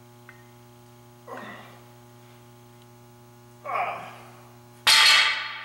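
Two forceful breaths during a one-arm dumbbell row. Then, about five seconds in, a loud sudden clank as the dumbbell is set down on the floor, ringing briefly. A steady electrical hum sits underneath.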